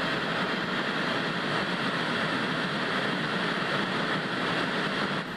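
Old television hissing with static from an untuned channel, a steady even rush of white noise that cuts off abruptly at the very end.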